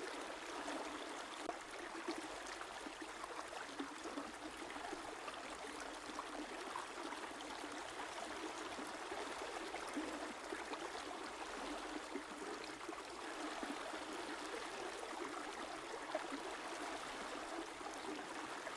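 A river flowing steadily over stones, a constant babbling and trickling of water.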